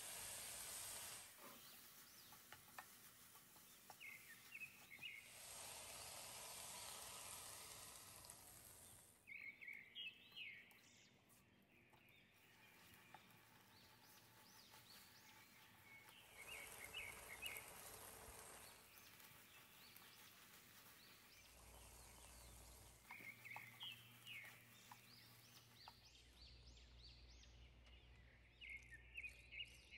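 Faint sizzling of a chicken and vegetable filling cooking in a frying pan, coming and going in stretches, with short high chirps now and then.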